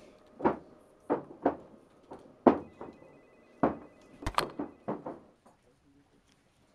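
A string of heavy knocks with a short ring after each, irregular and roughly once a second, with a quick double knock about four and a half seconds in, then stopping. A faint steady high electronic tone sounds for about a second and a half midway.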